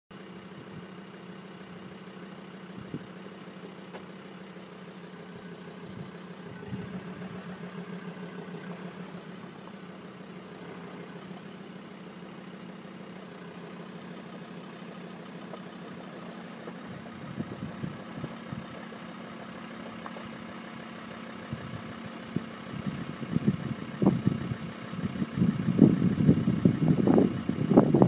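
A car engine idling steadily, heard from inside the car. In the last several seconds it is joined by louder, uneven rumbling and knocks.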